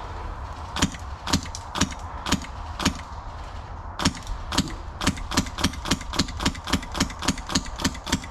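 Airsoft gun firing single shots as sharp clicks: about five shots half a second apart, then, after a short pause, a quicker steady run of about four shots a second.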